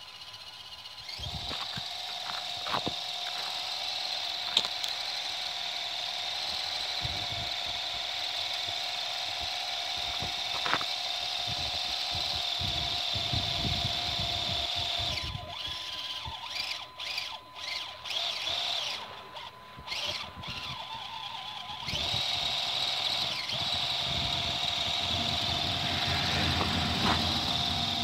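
Electric drive motor and gearbox of an HG P402 RC scale truck whining steadily as it drives through snow. The whine breaks off and restarts several times about halfway through as the throttle is let off and reapplied.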